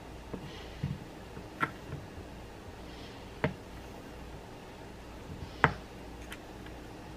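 Kitchen knife knocking down onto a plastic cutting board as block cheese is cut into cubes: a handful of sharp, uneven knocks, the loudest about five and a half seconds in.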